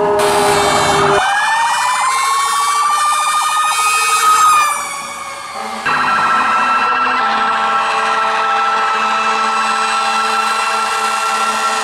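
Fire engine sirens. One siren winds up in pitch over a couple of seconds and falls away. A different siren then sounds, holding a steady high pitch.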